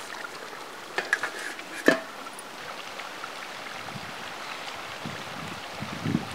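A few light clicks and one sharp knock just before two seconds in, over a steady outdoor hiss; a low wind rumble on the microphone comes in near the end.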